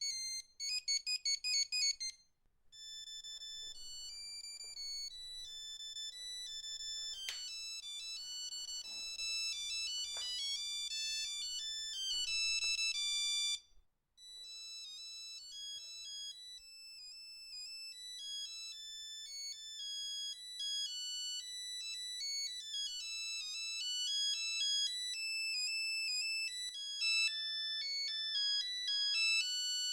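Nokia 3210 monophonic ringtones playing one after another as beeping tunes, one note at a time. A fast repeating figure ends about two seconds in, a melody runs until about halfway, and after a brief gap a new tune begins.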